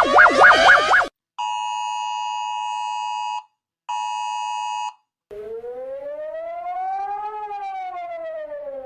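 Electronic emergency alert tones in a row. A fast warbling alarm tone cuts off about a second in, then a steady two-tone attention signal sounds twice, first for about two seconds and then for about one. After a short gap comes a siren that slowly rises in pitch and then falls.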